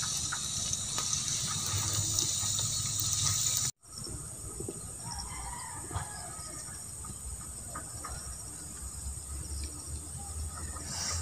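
Cassava leaves frying in hot oil in a wok, a steady sizzle that cuts off abruptly about four seconds in, giving way to a quieter outdoor background.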